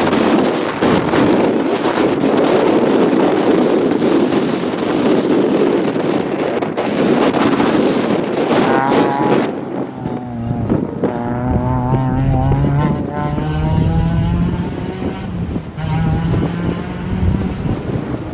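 Strong wind buffeting the microphone for about the first half. Then a Peugeot 206 rally car passes close on a gravel stage, its engine revving hard, the note climbing and dropping back at each gear change.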